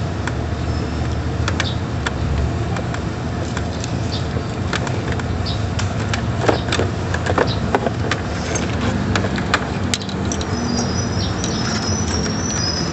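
Light metallic clicks and taps from hands and tools working on parts in a car's engine bay, over a steady low background hum. Faint high-pitched chirps come in near the end.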